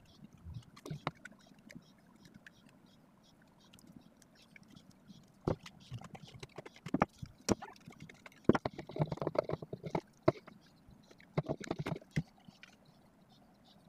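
Plastic bottle and parts being handled: scattered clicks and knocks, bunched in a rattling cluster about halfway through and another near the end.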